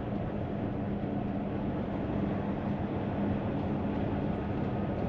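Steady in-cab drone of a Hino semi-truck's diesel engine and drivetrain, with a constant low hum, as the truck creeps along in a traffic jam.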